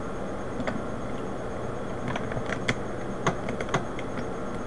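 Plastic pieces of an older-model Rubik's Cube clicking and tapping together as they are fitted into the partly reassembled cube: scattered sharp clicks, most of them between about two and four seconds in, over a steady hiss.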